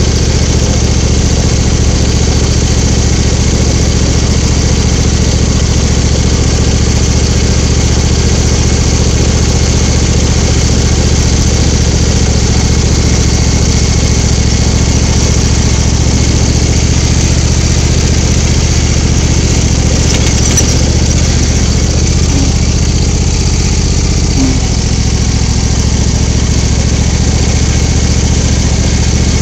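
Small John Deere tractor engine running steadily, with a loud, even drone and a slight shift in its note near the end.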